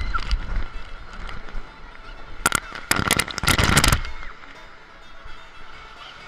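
Water splashing and spraying over a raft and the camera on a water coaster slide, in a short burst about two and a half seconds in and a longer, louder rush from about three to four seconds in.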